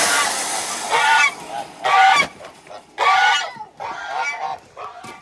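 Domestic geese honking, about six loud calls roughly a second apart, after a brief loud hissing burst at the very start.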